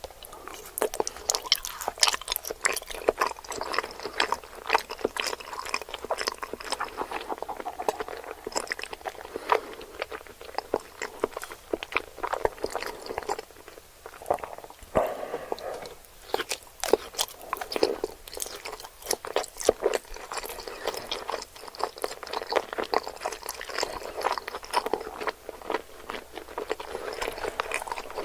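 Close-miked chewing of sushi: a dense, irregular run of crunching clicks and mouth sounds that continues without a break.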